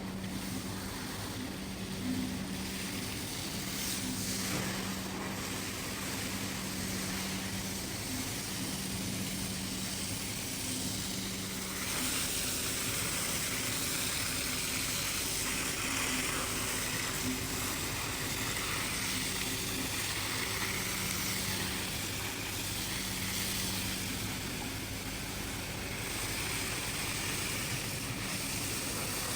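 A machine running steadily with a low hum under a continuous hiss.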